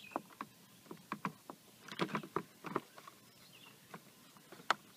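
Irregular small clicks and knocks of plastic parts being handled and pressed into place while fitting a fog light and its trim surround into a car's front bumper, with one sharper click near the end.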